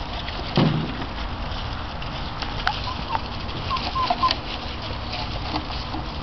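Six-week-old American Bandog Mastiff puppies scrapping over a hanging chicken. There is a short low growl about half a second in, then several brief high yips and squeaks, with a few sharp clicks in between.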